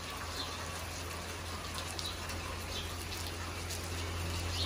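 Steady rain falling: an even hiss, with a low steady drone underneath.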